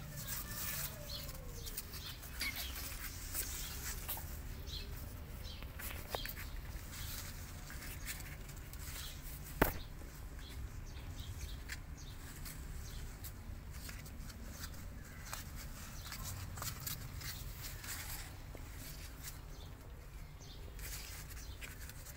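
Kittens moving about a cardboard box: a steady rustle of scratching and pattering on the cardboard, with one sharp tap about ten seconds in. A faint cat mew rises and falls near the start and again near the end.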